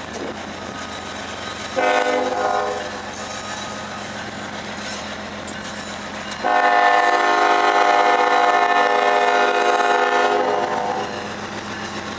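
Lead locomotive NS 8101, a GE ES44AC diesel, sounds its air horn for the grade crossing: a short blast about two seconds in, then a long one held for about four and a half seconds. The locomotive's engine and the train's rolling run steadily beneath.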